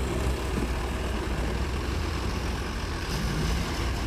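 Heavy vehicle engine running steadily, a deep low rumble with no changes in pace.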